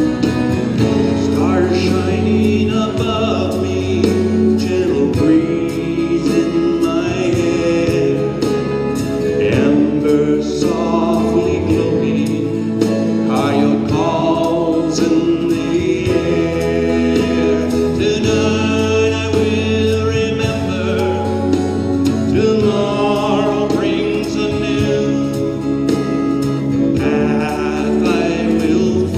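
Slow fusion music: held, layered tones over a steady bass, with a melody that slides up and down in pitch.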